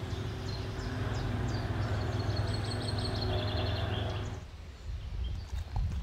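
Outdoor riverside background with small birds chirping in quick runs over a steady low hum. About four and a half seconds in the background suddenly drops and a low wind rumble on the microphone takes over.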